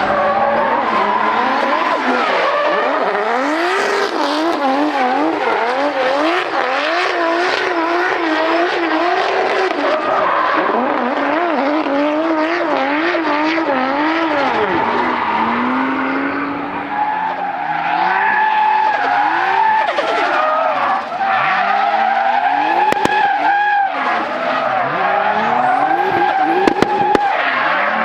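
Drift cars' engines revving hard, the pitch swinging up and down about twice a second as the throttle is worked through the slides, over the steady hiss of tyres skidding. A few sharp cracks come near the end.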